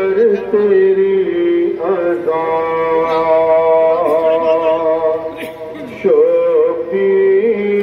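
Male chanting of a nauha, a Shia mourning lament, sung in long held, wavering notes phrase by phrase.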